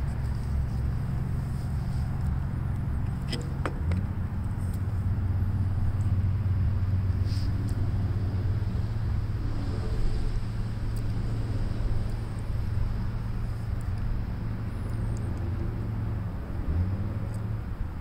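A steady low engine rumble from a running motor, with a couple of light metallic clicks about three and a half seconds in.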